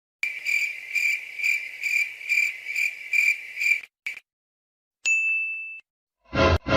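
Cricket-chirping sound effect: a high pulsing trill, about three pulses a second, for roughly three and a half seconds. About five seconds in comes a single short ding that fades away.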